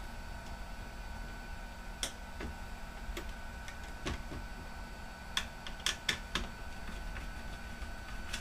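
Scattered light clicks and taps of plastic and metal laptop parts being handled during disassembly, about ten in all, bunched between about two and seven seconds in. A steady faint hum runs beneath them.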